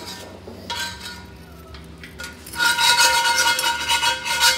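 Steel S-hook clinking and scraping against metal while it is worked into a hole in a rubber conveyor belt: a short clink about a second in, then a louder ringing metallic scrape for about the last two seconds.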